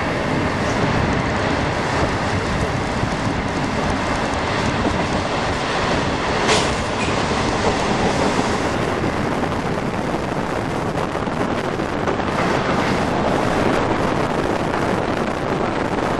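ALe 582 electric regional train running at speed, heard through an open window: a steady rush of wind and wheels on the rails, with one brief sharp high sound about six and a half seconds in.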